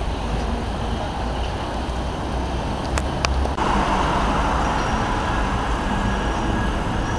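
Steady city road traffic, cars driving past a junction. Two sharp clicks come about three seconds in, and the sound changes abruptly just after, where the footage cuts.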